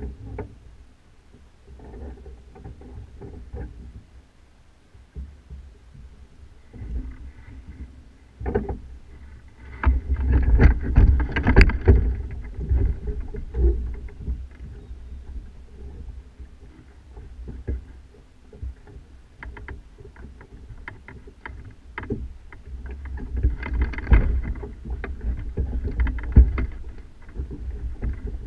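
Wind rumbling over a GoPro mounted at the top of a sailing kayak's mast, with irregular knocks and clicks from the rig. It grows louder about ten seconds in and again near the end.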